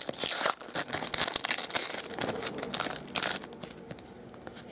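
Foil wrapper of a 2012 Gridiron Gear football-card pack being torn open and crinkled by hand: a run of sharp crackles over the first three seconds or so, then quieter rustling as the cards come out.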